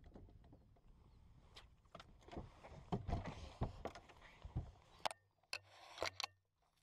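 A string of knocks, bumps and scrapes as an angler moves about and handles his gear on the front deck of a bass boat, loudest about three seconds in.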